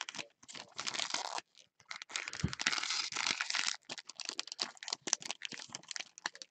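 Foil trading-card pack wrapper crinkling and rustling in gloved hands, with cards being handled. It goes in short crackly runs, with a brief pause about a second and a half in.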